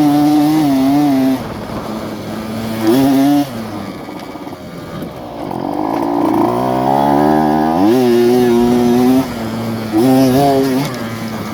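Modified two-stroke underbone motorcycle with a Yamaha F1ZR engine, revving in bursts: a short throttle blip at the start and another about three seconds in, a longer rising rev from about five seconds that is held high until about nine, then one more blip, dropping back to a lower running note between them.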